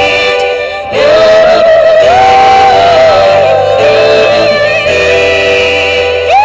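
Band playing, with a held melody line that bends in pitch over guitar and drums, briefly dropping back about a second in.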